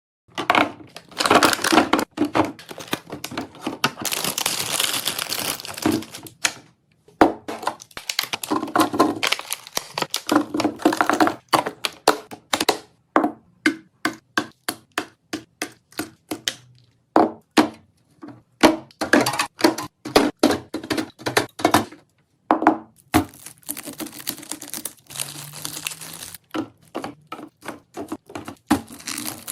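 Fridge-restocking handling sounds: many quick clacks and taps of containers and items being set down and shuffled, with several stretches of rustling, crinkling packaging.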